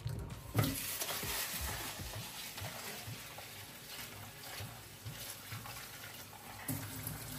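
Kitchen tap running into a plastic bowl while lentils are swished and rinsed by hand, a steady splashing that starts about half a second in.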